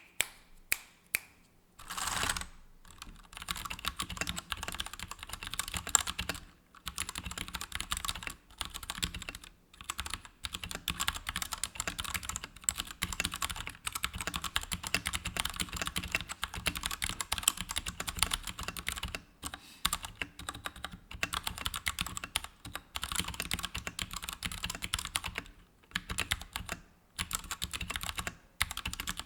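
Royal Kludge RK100 mechanical keyboard with brown tactile switches being typed on: a few single keystrokes, then fast continuous typing broken by several short pauses.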